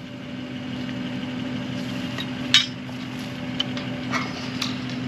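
A steady mechanical hum with scattered metallic clinks and taps from handled well pipe, couplings or tools. The sharpest clank comes about two and a half seconds in.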